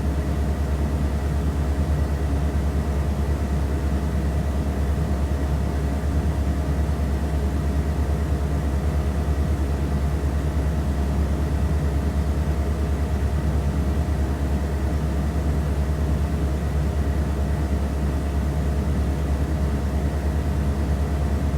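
A steady low hum with a few faint steady tones above it, unchanged throughout.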